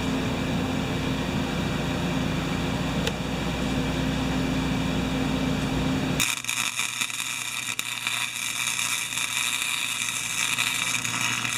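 Wire-feed (MIG) welder at work. A steady hum gives way about six seconds in to a loud, crackling hiss, then cuts off near the end.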